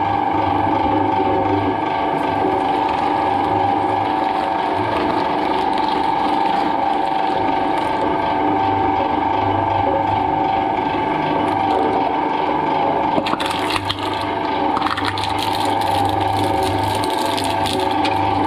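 Twin-shaft shredder running with a steady gear whine and a low hum as its toothed cutters turn. A few knocks and scrapes come about two-thirds of the way in.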